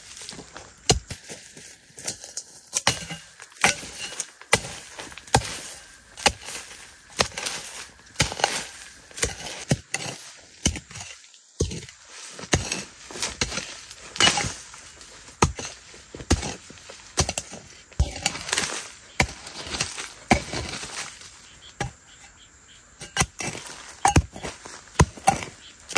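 Metal hoe chopping into soil around cassava roots: short, sharp, unevenly spaced strikes about one to two a second, with scraping of earth between them.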